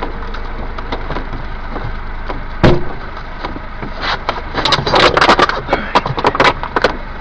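Knocks and clatter inside the cab of an overturned mini truck over a steady low rumble. There is one heavy knock about two and a half seconds in, then a quick, irregular run of sharp knocks and rattles in the second half.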